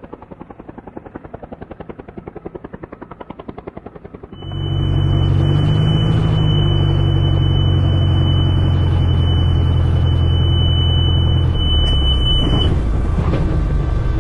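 Aircraft noise. First a quieter, even, rhythmic beating of blades, then about four seconds in a much louder steady low engine drone sets in, with a thin high whine above it that stops a little before the end.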